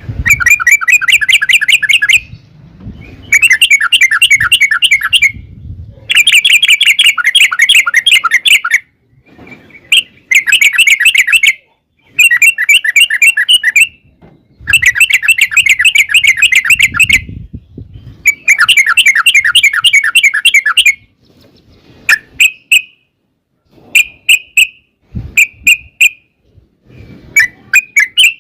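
Yellow-vented bulbul (trucukan) singing long, rapid phrases of bubbling notes, each about two seconds long with short pauses between them. Near the end these give way to a few short single notes.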